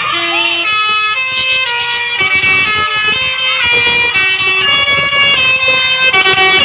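Telolet bus horn playing a tune of stepped, pitched notes that change about twice a second.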